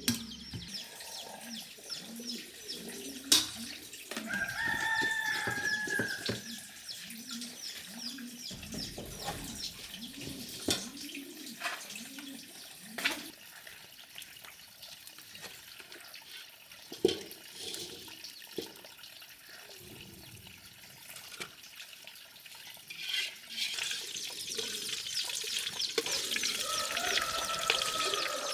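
Chickens: a rooster crows about five seconds in and again near the end, with low repeated clucking between, a high chirring and a few sharp knocks.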